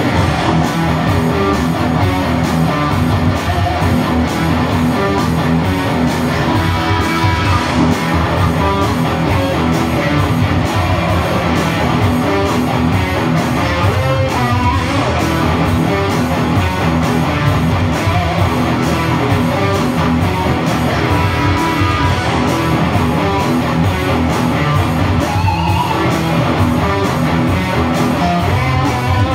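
Electric guitar played with a pick over a backing track with a steady beat.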